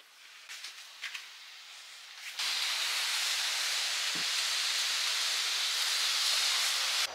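Hose nozzle spraying a strong jet of water, a loud steady hiss that starts suddenly after faint rustling and cuts off sharply near the end. The water is wetting the plastic matting of a ski jump hill.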